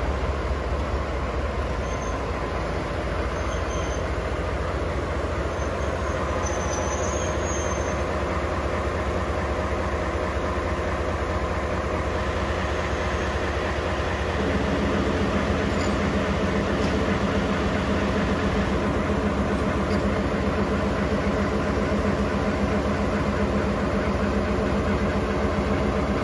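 A locomotive running slowly toward and past the listener with a steady rumble of engine and rails. A deeper engine drone grows louder about halfway through as the locomotive comes close.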